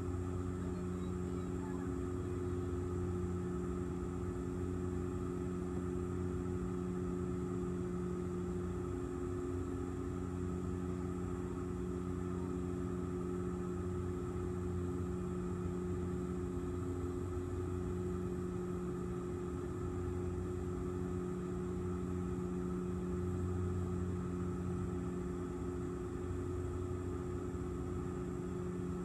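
Airliner cabin noise: the aircraft's engines droning steadily, a layered low hum that swells and fades slowly in a pulsing beat, over a constant rush of air.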